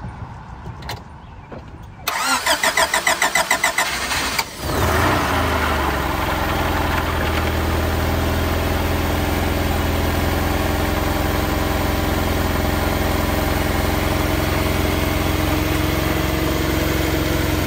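An older Honda four-cylinder engine cranked by its starter on a jump-starter booster pack, its own battery being dead: about two seconds in the starter turns it over in fast pulses, about five a second, and after a brief pause the engine catches and settles into a steady idle.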